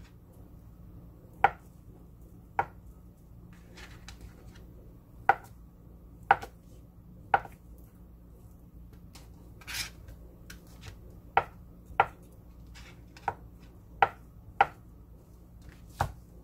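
Kitchen knife dicing ham on a plastic cutting board: single sharp knocks of the blade hitting the board, about a dozen, spaced irregularly a second or so apart.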